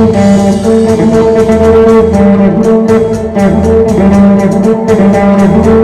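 Amplified Isan phin, the Lao-Thai plucked lute, playing a lam phloen tune. Steady drone notes sound under the plucked melody, with a bass line and regular percussion beats.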